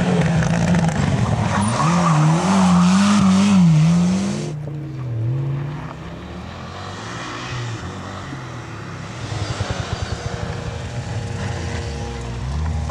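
Rally cars at full speed on a tarmac stage, engines revving up and down sharply with throttle lifts and gear changes. First comes a close, loud car, a Ford Escort RS Cosworth. The sound cuts off abruptly about four and a half seconds in, and a quieter, more distant car follows, growing louder again near the end.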